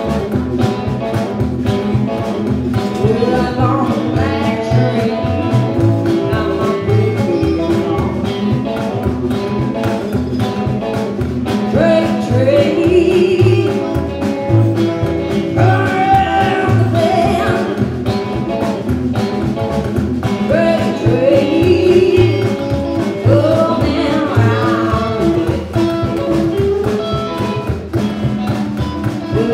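Live band music: a woman singing over upright double bass, drum kit and electric guitar, with a steady beat.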